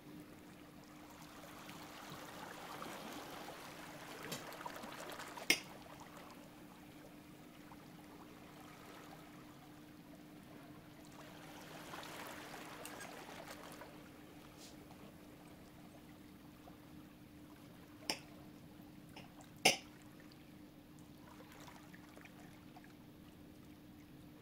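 Liquid pouring or trickling in two soft spells, with three sharp clicks like utensils or dishes knocking, over a faint steady hum.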